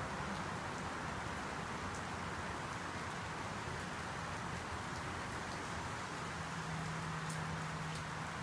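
Steady rain falling on wet pavement and leaves, an even hiss with faint scattered drop ticks. A faint low hum joins about six seconds in.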